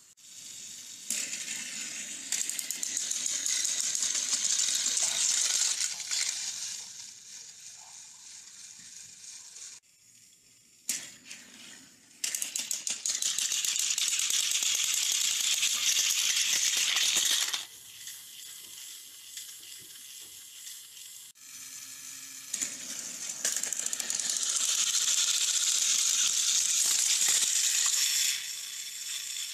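Plastic toy trains rattling and clattering. There are three loud stretches of about five seconds each, with quieter gaps between.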